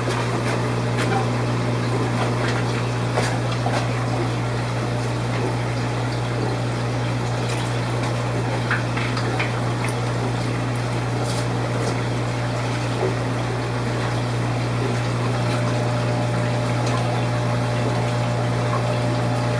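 Aquarium pumps running with a steady hum over water splashing and trickling through the tank system, with a few faint clicks.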